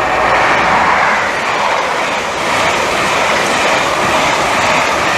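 InterCity 125 High Speed Train with Class 43 diesel power cars passing at speed: a loud, steady rushing noise.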